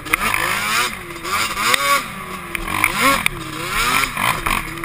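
Quad (ATV) engine under way, revving up and down over and over as the throttle is worked while riding.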